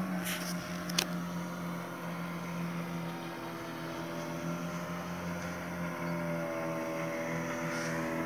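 Engine running steadily at an even pitch, with one sharp click about a second in.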